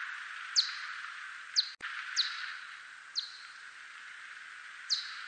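Bat calls of the whiskered bat 대륙쇠큰수염박쥐 (genus Myotis), brought down into hearing range: five short chirps, each a quick falling sweep, at uneven intervals over a steady hiss. A single sharp click comes a little before the middle.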